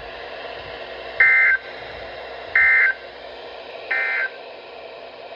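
NOAA Weather Radio SAME end-of-message data code: three short bursts of two-tone data chirps about a second and a third apart, over steady radio static, signalling the end of the warning broadcast.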